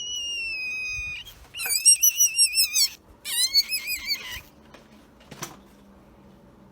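High-pitched whistling: one long note sliding slowly down, then two warbling, wavering phrases. A single sharp click near the end.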